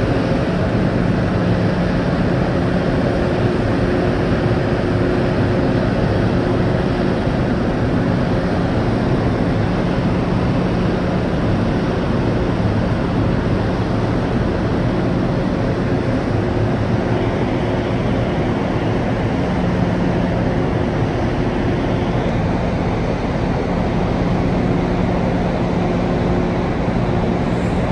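Steady low machinery hum of a ro-pax ferry's engines and ventilation while manoeuvring alongside the quay, mixed with a constant rushing noise. The hum tones fade in and out a few times.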